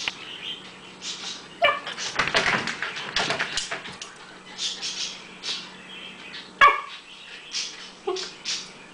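An American Cocker Spaniel puppy giving a few short yips and whimpers that fall in pitch, the sharpest and loudest about two-thirds of the way through. Breathy, hissy noises come in between.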